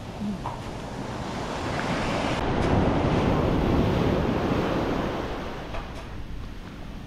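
Small waves breaking and washing up a sandy beach: a surge of surf swells over about two seconds and then fades away.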